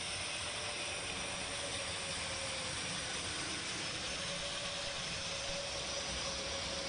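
Turboprop engines of an Airbus A400M running on the ground, its eight-bladed propellers turning: a steady rushing engine noise with a faint, even whine.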